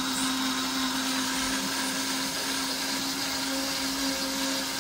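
Black+Decker countertop blender running steadily, puréeing vegetables into a green mix: an even motor whir with one constant low hum.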